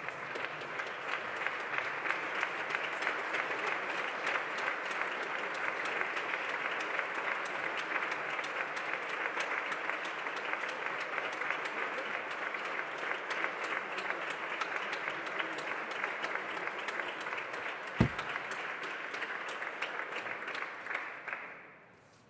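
A chamber full of parliamentarians clapping in a standing ovation, dying away near the end, with a single thump about eighteen seconds in.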